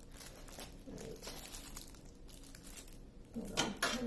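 Plastic packaging crinkling and rustling as a rolled diamond painting canvas is unwrapped, with a louder burst of crinkling near the end.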